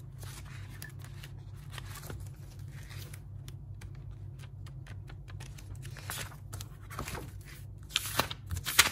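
Paper pages of a spiral-bound notebook being flipped by hand, a run of rustling, flapping page turns, louder about six seconds in and again near the end.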